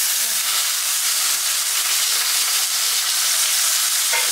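Two torpedo scad frying in hot oil in a pan: a steady, loud sizzle and hiss.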